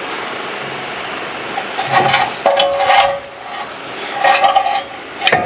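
Brake caliper piston being forced back into its bore with a hand-cranked clamp: two bouts of squeaky metal scraping, about two seconds in and again about four seconds in, then a sharp metal click near the end. The piston is stiff and resists going back in.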